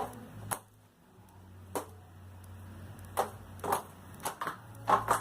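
Homemade white-glue slime being squeezed and stretched by hand, giving sharp little clicks and pops as trapped air bursts, about nine at irregular intervals.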